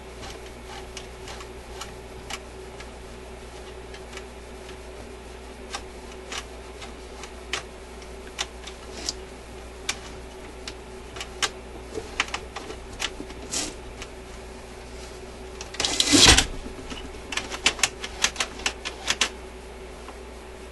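Small metal clicks and snaps from a record changer's levers and linkage being worked by hand, scattered through, with a louder clatter about 16 seconds in and a quick run of clicks after it. The On/Off/Reject control linkage is sticking, with no spring force pulling it back.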